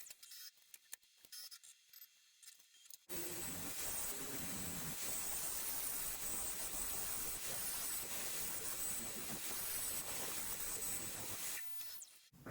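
A few faint clicks in near quiet, then a steady, even hiss that starts abruptly about three seconds in and fades out just before the end.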